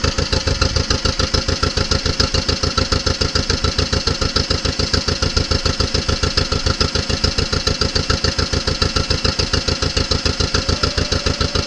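1955 John Deere 40 S two-cylinder tractor engine running at low throttle with a steady, rapid, even exhaust beat.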